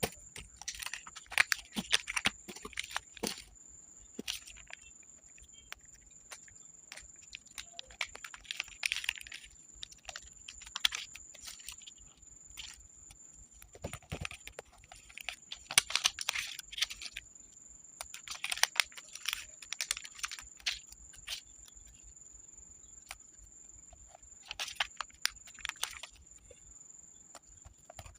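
Close-up ASMR journaling sounds: paper and journal materials handled, with scattered taps and clicks and several short bursts of paper rustling, crinkling or tearing. A faint, steady high-pitched whine runs underneath.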